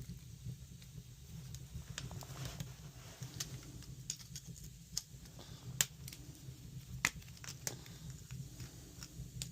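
Scattered small clicks and ticks of brittle plastic sockets and their brass contacts being twisted and broken apart, over a steady low hum. A couple of sharper clicks come about six and seven seconds in.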